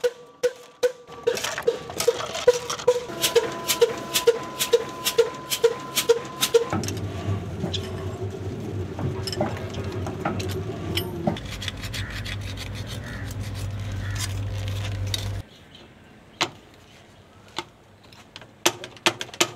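Mechanical sounds: a regular knocking about twice a second for the first several seconds, then a steady low hum that cuts off suddenly, then scattered metallic clinks of hand tools on engine parts.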